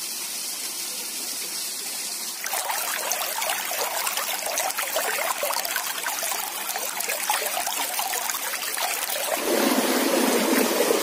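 Shallow rocky stream running over stones: a steady soft hiss at first, then about two seconds in a closer, louder rush of water rippling past the rocks, which grows louder and lower near the end.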